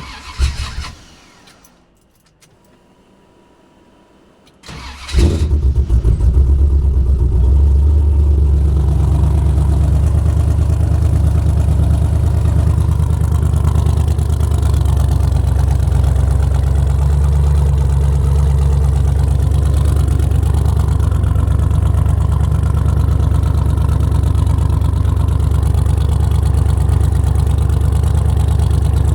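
Cold start of an LS V8 engine in a Jeep on a newly fitted gear-reduction starter: after a brief noise about half a second in and a short pause, the starter cranks and the engine catches about five seconds in, then settles into a steady idle with a deep rumble. The starter turning the engine over shows the replacement works, where the old one only clicked.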